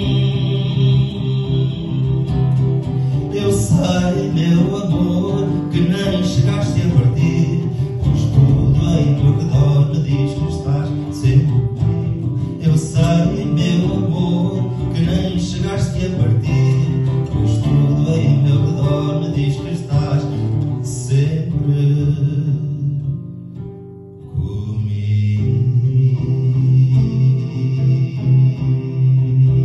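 Guitar playing an instrumental passage of a fado song, dense plucked notes that thin out and dip briefly about three-quarters of the way through before the playing picks up again.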